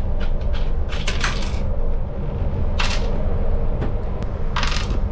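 Lifeboat's fresh-water locker hatch cover being unfastened and opened by hand: a few light clicks, then three short scraping rattles about a second, three seconds and four and a half seconds in. A steady low machinery hum runs underneath.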